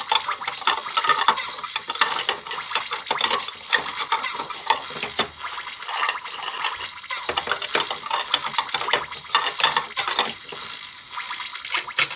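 Plastic toy cookware and utensils clacking and scraping: a toy fork and spatula tapping against a plastic frying pan and stove, many quick clicks over a steady hiss.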